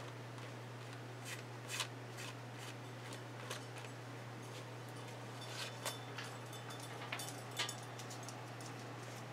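Faint scattered clicks and rustles of art supplies and paper being handled, about eight in all, over a steady low hum.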